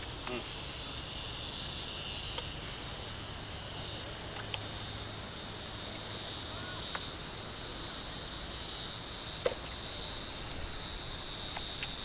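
Steady high-pitched insect chorus. Over it come a few faint clicks and rustles, and one sharper knock near the end, as a landed sheepshead is handled in a landing net.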